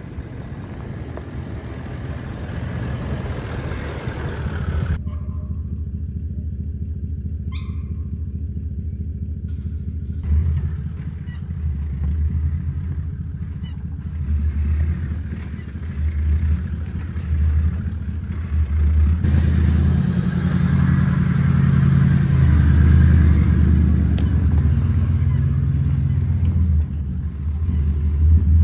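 V8 Toyota LandCruiser's engine and exhaust running as it drives a 4WD track, a low rumble that swells and eases. Its character changes abruptly about five seconds in, again about ten seconds in, and near twenty seconds in.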